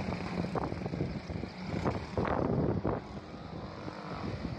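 Small quad ATV engines running steadily as the quads ride away across the dirt, with a louder surge about two seconds in.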